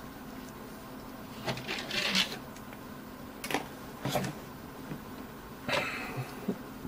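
Small plastic parts and packaging handled on a tabletop: a few short rustles and clicks spaced a second or two apart.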